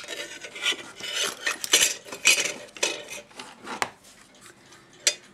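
A wooden clock-bushing chart box being slid and lifted on a workbench: irregular scraping and rubbing of wood on wood, with a few sharp clicks.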